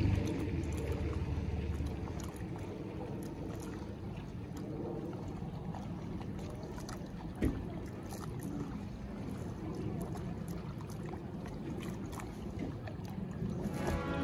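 Steady sloshing of water and wind noise, as from a small boat out on the water, with one sharp knock about seven and a half seconds in.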